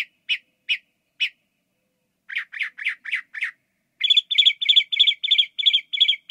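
Northern mockingbird singing: a short high note repeated several times, a pause, a run of five lower notes, then a quick series of doubled notes, each phrase repeated before the song switches to the next.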